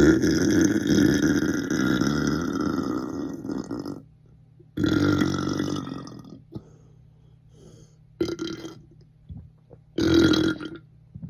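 A person burping loudly, four times: a long drawn-out belch lasting about four seconds, then a shorter one, a brief one, and another short one near the end.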